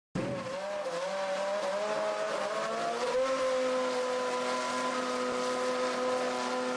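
Racing car engine at high revs, starting suddenly and rising in pitch with small wobbles over about three seconds, then holding one steady note.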